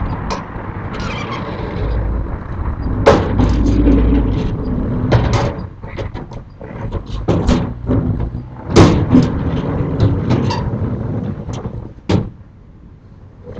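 Sliding storm shutters (amado) being run shut along their rails: a rumbling slide broken by a series of knocks and bangs, with a last loud bang about twelve seconds in.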